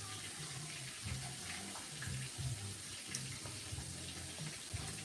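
Steady, fairly faint hiss of food cooking on the stove, with pasta boiling and catfish frying.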